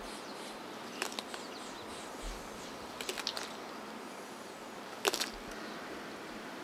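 Pinta Island giant tortoise biting into a prickly pear cactus pad: a few sharp crunches, the loudest about five seconds in, over a faint steady hiss.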